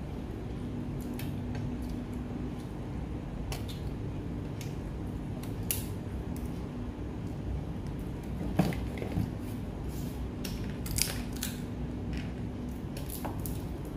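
Steamed mud crab shells cracking and snapping as they are pulled apart by hand and with a metal crab cracker, mixed with taps on plates, in scattered clicks, with one louder knock about halfway through. A steady low hum runs underneath.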